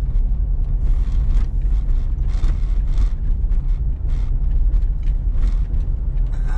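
Cabin noise inside a moving 2009 Honda Accord: a steady low rumble of engine and road, with scattered light clicks and rattles.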